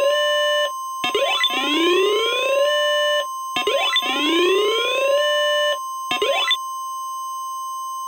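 NOAA Weather Radio warning alarm tone, a steady 1050 Hz tone sounding an alert, with a loud rising whooping alarm sweep layered over it. The sweep repeats about every two and a half seconds and each one ends in a brief held note. The last sweep is cut short about six seconds in, leaving the steady tone alone.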